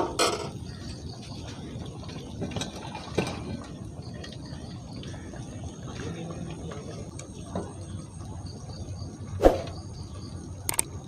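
Pieces of fish being added to a pot of fish curry: a few sharp knocks and splashes over a low steady background, the loudest about nine and a half seconds in.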